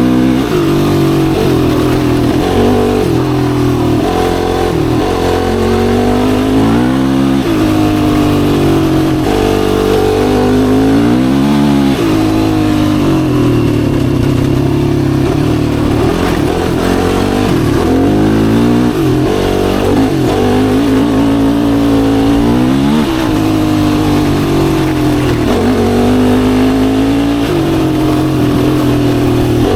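Yamaha YFZ450R's single-cylinder four-stroke engine running under way, its pitch repeatedly climbing as the throttle is opened and dropping again as the rider shifts or backs off.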